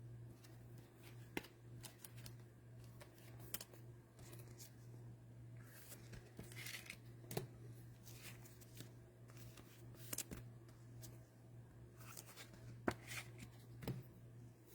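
Faint handling of trading cards: soft slides and scattered light clicks of cards being gathered and stacked, over a steady low electrical hum.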